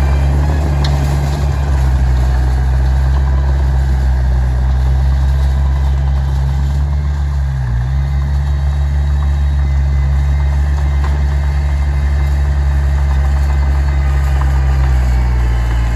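Heavy diesel engine of an earthmoving machine running steadily at low revs, with a brief dip in the engine note about halfway through.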